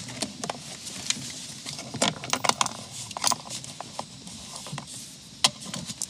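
Scattered light clicks and rattles of a cordless drill with a socket extension being handled and drawn back from the console, with one sharper knock near the end.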